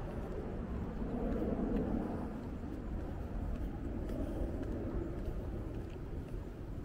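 Road traffic on a city street: a steady low rumble, with a vehicle passing close that swells and fades between about one and two and a half seconds in.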